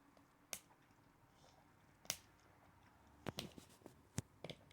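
Faint, scattered sharp clicks and taps, about six in all, from small plastic toy packaging being handled and worked open; otherwise near silence.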